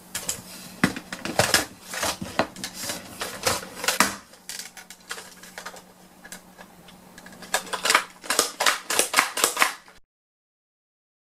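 Hard plastic parts of a VTech elephant bath toy clicking and clattering as it is handled and turned over, a quick irregular run of sharp clicks and knocks that is busiest near the end. It cuts off suddenly about ten seconds in.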